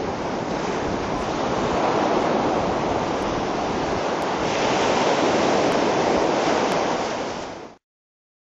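Wind buffeting the microphone over beach surf: a steady rushing noise that swells and eases a little, then fades out to silence near the end.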